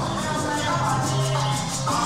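Latin tropical dance music played over a sonidero's sound system, with a maraca-like shaker keeping a steady beat over held bass notes.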